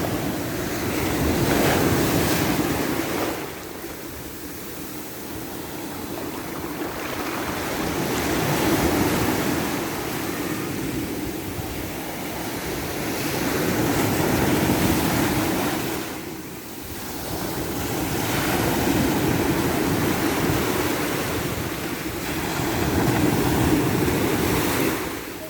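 Ocean waves breaking and washing ashore, the surf swelling and fading roughly every five seconds.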